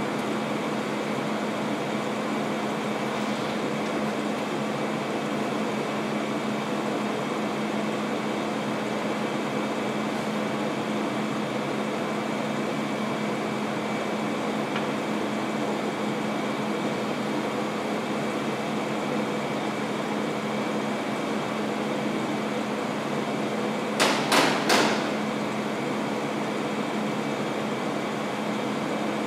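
Steady hum of room air conditioning with a constant low tone. Near the end it is broken by three quick, sharp knocks within about a second.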